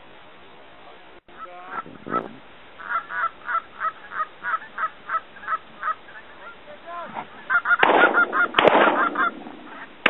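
Canada geese honking. A run of evenly spaced honks comes at about three a second, then many geese honk together in a louder, overlapping clamour from about eight seconds in.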